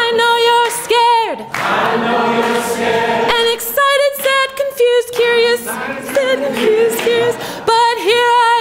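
A congregation singing a cappella: many voices on a simple repeated refrain, with long held notes.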